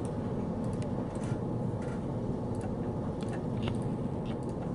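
Computer mouse clicking: a few scattered, irregular clicks over a steady low background hum.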